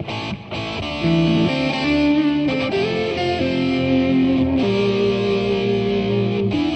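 Intro music: distorted electric guitar playing held chords that change every second or so, getting louder about a second in.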